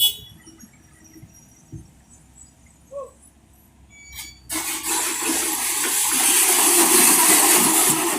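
Soil and sand pour from an excavator bucket into a steel dump truck bed: a sudden loud rushing that starts about halfway through and keeps going. A sharp click comes at the very start.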